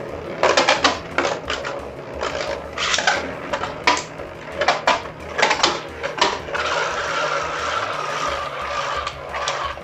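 Beyblade spinning tops clashing in a plastic stadium: a run of sharp clicks and knocks, then, about two-thirds of the way in, a top spinning with a steady whir whose pitch slowly falls as it loses speed.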